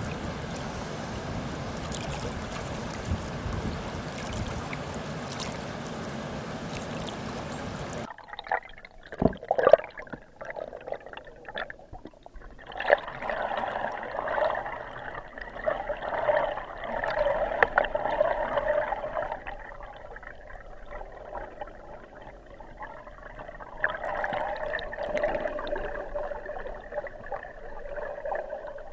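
Flowing river water with wind on the microphone; about eight seconds in the sound suddenly turns muffled, with the highs gone, as with the camera's microphone dipped underwater in the current.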